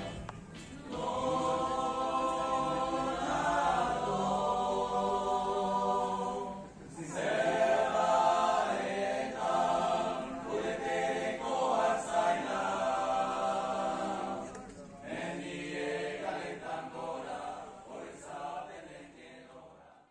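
A small group of men singing a cappella in close harmony, in the manner of Corsican polyphonic song: long held chords in phrases, with pauses about 7 and 15 seconds in, fading out at the end.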